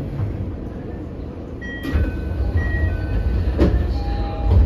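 Toei Oedo Line 12-000 series linear-motor subway car running, heard from inside the car: a steady low rumble that grows louder about two seconds in. A few short high tones sound over it, and there are sharp clanks near the middle and the end.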